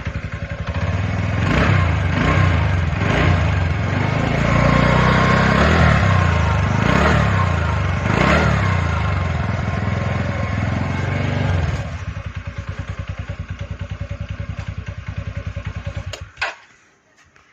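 TVS Ntorq scooter's single-cylinder engine running with several throttle blips, then dropping to a steady pulsing idle about twelve seconds in. It stops suddenly near the end.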